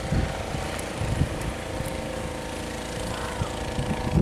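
A steady motor hum with low, gusty wind rumble on the microphone.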